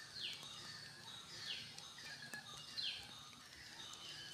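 A bird calling over and over, a short call that falls in pitch, four times about a second and a quarter apart. Faint taps of a steel fork pricking thin rolled dough on a stone board sound underneath.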